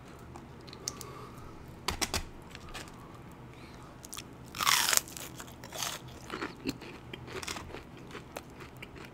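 Crunching bites and chewing of a crispy breaded fried chicken cutlet, close to the microphone. The crunches are crackly and irregular, with the loudest crunch just before halfway.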